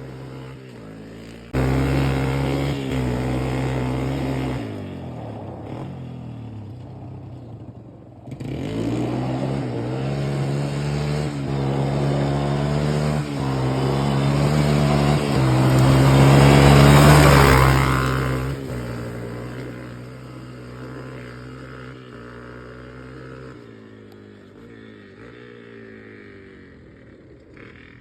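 1987 Yamaha Warrior 350 ATV's single-cylinder four-stroke engine running and revving, its pitch rising and falling. It grows louder to a peak about two-thirds of the way through, then fades away.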